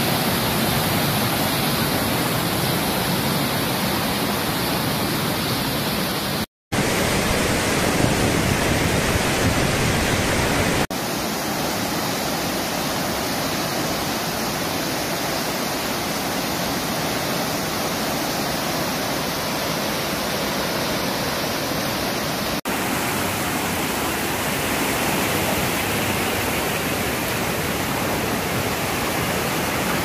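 Steady rushing of water tumbling over rocks in a forest stream, with waterfall spray. It cuts out for a moment about six seconds in, and its tone shifts slightly twice further on.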